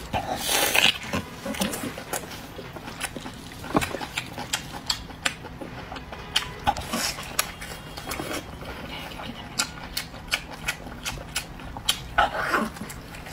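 Close-miked eating sounds of a person biting into and chewing soft stuffed pork stomach: many short wet mouth clicks and lip smacks. A few louder breathy swells come near the start, just before four seconds in, and near the end.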